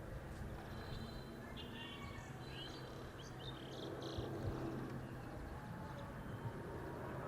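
Faint birds chirping, a run of short high calls in the first half, over a steady low hum.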